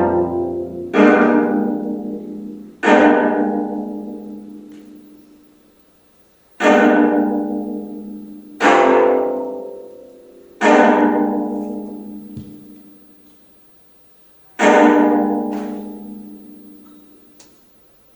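25-string gayageum playing slow, sparse chords: each one plucked sharply and left to ring and fade away, with long gaps between them, six in all.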